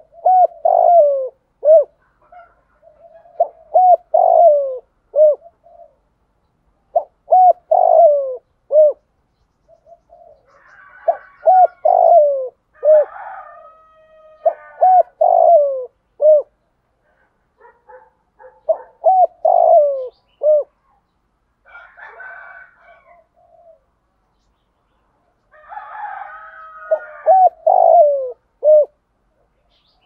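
Spotted dove cooing: about seven phrases of several short, arching coos each, repeated every few seconds with pauses between. This is a decoy bird's call, used to draw wild spotted doves in.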